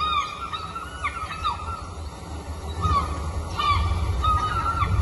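Seabird cries played through the theatre's sound system as part of the performance soundtrack: a dozen or so short, mostly falling calls, with a lull about two seconds in, over a low steady rumble.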